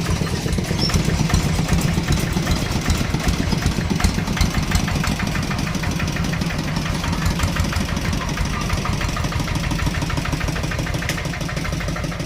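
Kubota RD65 single-cylinder diesel engine on a hand tractor, running steadily at an even speed.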